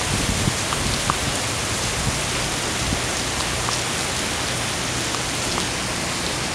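Heavy rain pouring onto a paved parking lot: a steady hiss with a few faint ticks of drops.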